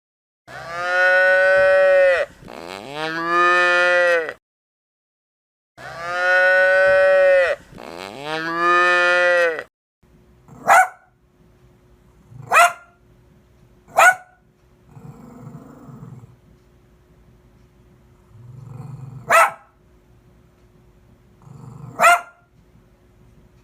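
A cow mooing: two pairs of long, drawn-out moos in the first half. Then come five short, sharp barks spread a few seconds apart, with a faint steady hum underneath.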